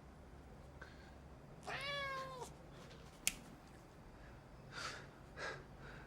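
A domestic cat meows once, a single drawn-out meow about two seconds in that rises and then falls. A sharp click follows about a second later, and two short soft noises come near the end.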